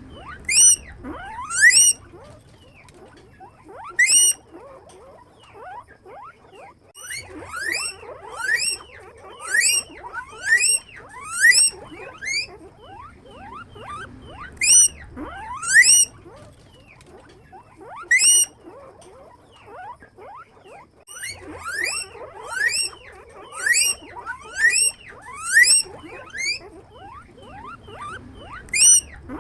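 Guinea pig squeaking: loud, high squeals that each sweep upward in pitch, repeated in runs of about one a second with short pauses between.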